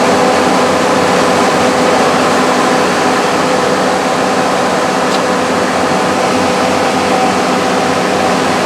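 Onan 80 kW diesel generator set, driven by a six-cylinder turbo diesel Cummins, running loudly at steady speed with an even hum.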